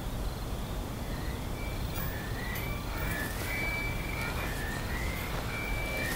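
Outdoor night ambience: a steady low rumble with overlapping thin, high drawn-out calls that slide slightly in pitch, coming in from about two seconds in.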